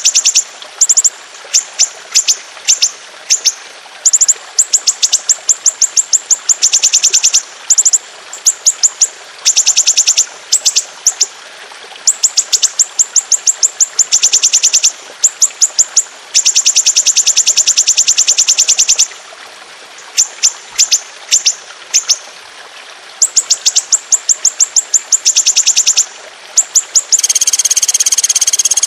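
Songbird singing very fast, high-pitched trills in runs with short breaks. Some rolls are held for two to three seconds, others are short volleys of notes. Near the end a denser, buzzier burst lasts about a second and a half.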